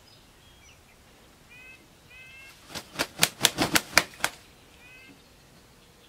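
Chickens in a wire run: a quick burst of about eight sharp wing flaps over a second and a half, with a few faint short calls before and after.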